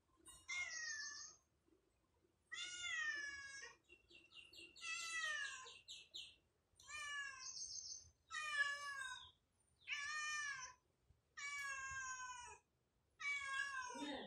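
Ginger cat meowing over and over: about eight drawn-out meows, roughly one every second and a half, one of them longer than the rest.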